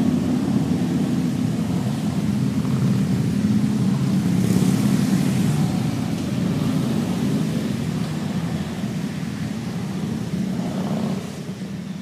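A steady low engine drone that eases off slightly near the end.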